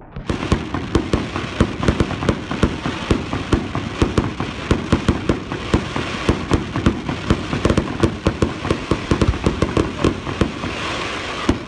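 Fireworks crackling overhead: a dense run of sharp pops and crackles over a steady hiss, starting abruptly.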